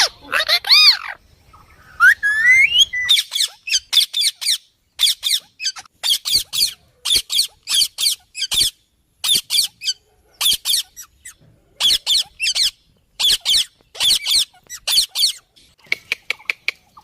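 Ringneck parrot calling: a rising whistle about two seconds in, then short, high-pitched squawks in quick runs of two to four, repeated over and over.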